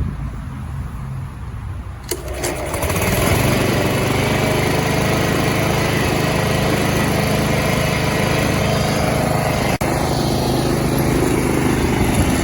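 Honda HRX217 lawn mower's GCV160 engine running: a low steady hum at first, then about two seconds in it picks up sharply and runs steady and loud at full speed.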